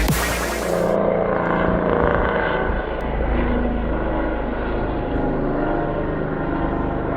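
Helicopter's turbine and rotor running steadily: a continuous drone of several held tones over a rushing noise, starting about a second in as a loud burst of electronic music ends.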